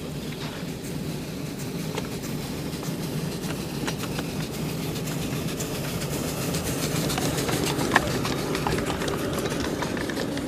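Live-steam model train running on 5-inch gauge track, wheels rumbling and clicking over the rails, getting louder toward a sharp click about eight seconds in.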